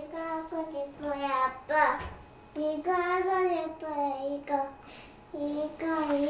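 A young child singing in several short, high-pitched phrases with brief pauses between them.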